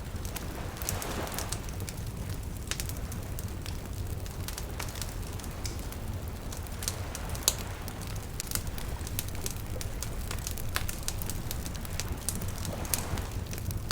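Bonfire crackling, with frequent sharp pops and snaps of burning wood, over a steady low wash of sea waves that swells about a second in and again near the end.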